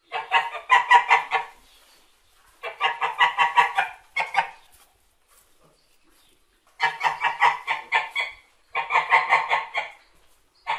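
Domestic white geese honking in rapid strings of calls, about six to eight a second, in bouts of a second or so with short pauses between.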